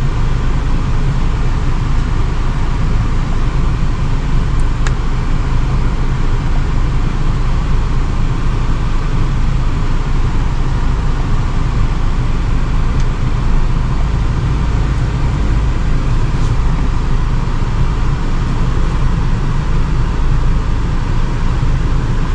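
Range Rover Evoque engine idling steadily, running evenly after a leaking PCV valve was replaced to cure an air leak and misfire.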